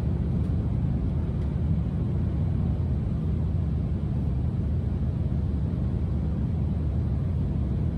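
Steady low rumble of road and wind noise in the cab of a Mercedes eActros 300 electric truck driving at speed, with no engine note because it runs on battery-electric motors.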